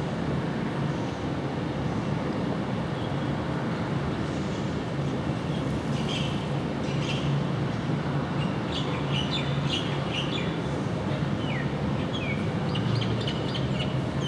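Distant twin-engine jet airliner climbing out: a steady, low engine rumble. Small birds chirp over it from about halfway through, with a few short falling notes near the end.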